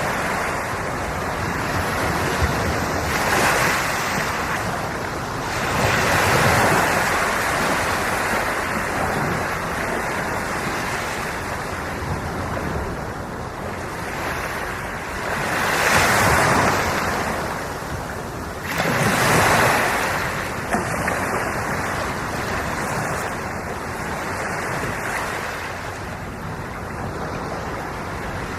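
Ocean waves washing onto the shore, a steady surf with swells about every few seconds, the strongest around a third of the way in and again past the halfway mark, with some wind on the microphone.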